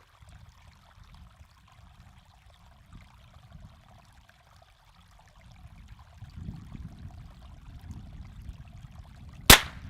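A single sharp shot from a Henry Golden Boy .22 LR lever-action rifle firing a hollow-point round, near the end, over a low rumble that builds from about halfway through.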